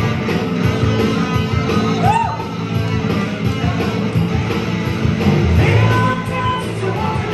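Live rock band: a woman singing lead into a microphone over a distorted electric guitar.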